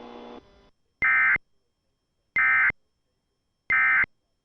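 Emergency Alert System End of Message signal: three identical short, buzzy digital data bursts (the SAME "NNNN" code), about 1.3 seconds apart, marking the end of the alert broadcast.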